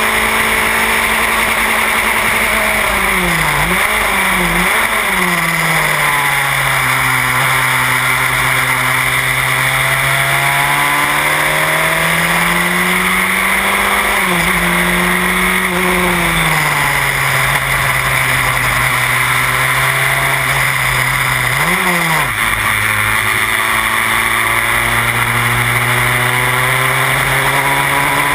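Onboard sound of a Formula Renault single-seater's engine at racing speed, over a steady rush of wind. The engine note drops twice in quick jabs about three to five seconds in, then rises slowly through long pulls. A sharp rev spike and drop comes around twenty-two seconds in.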